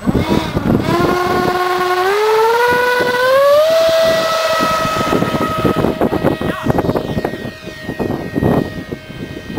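64 mm electric ducted fan of a model jet spooling up for takeoff: its whine rises in steps about a second in, again near two seconds and again near three and a half seconds, then holds a steady pitch at full power and grows fainter as the model flies off, over a rough rushing noise.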